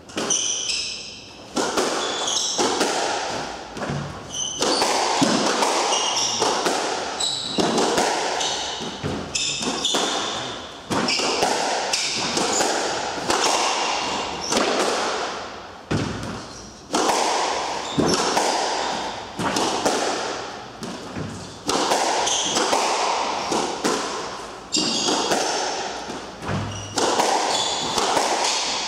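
Squash rally: repeated sharp smacks of the ball off rackets and the court walls, echoing in the enclosed court, with brief high squeaks of players' shoes on the wooden floor between the shots.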